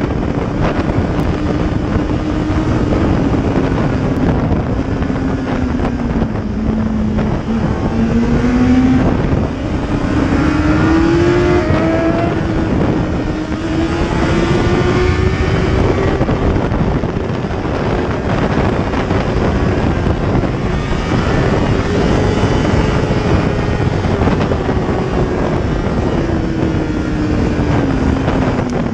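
Sport motorcycle engine heard from on board while riding, its note rising and falling slowly with the throttle, over a steady rush of wind on the microphone.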